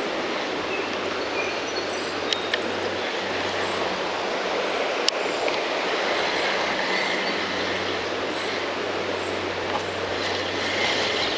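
Steady rush of a fast-flowing creek, running high and muddy after rain, with a few faint sharp clicks over it.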